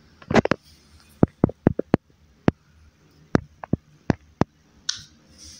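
About a dozen sharp, irregular clicks and taps from handling a clear plastic deli cup and tweezers, with a short rustling scrape near the end.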